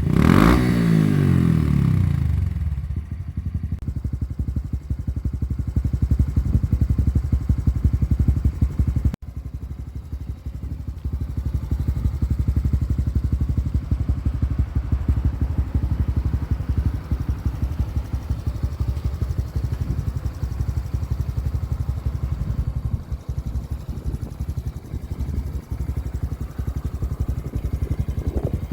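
Honda CT125 Hunter Cub's single-cylinder engine running through an OUTEX aftermarket exhaust: a quick rev right at the start drops back within about two seconds to a steady, evenly pulsing idle. The sound breaks off abruptly about nine seconds in and the idle carries on.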